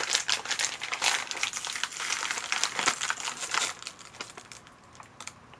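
Plastic snack bag of wasabi-coated peanuts crinkling in a rapid, irregular crackle as it is handled and pulled open, dying away about four seconds in.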